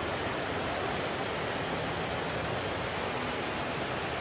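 Steady rushing of a stream's flowing water, an even hiss with no breaks.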